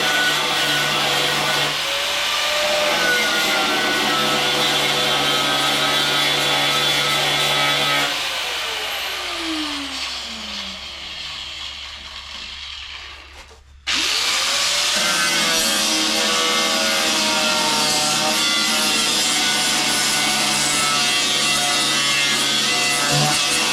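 Electric angle grinder grinding on a steel body panel, a steady motor whine over the rasp of the disc. About eight seconds in it is switched off and spins down with a falling whine; a few seconds later it starts again abruptly, spins back up and grinds on.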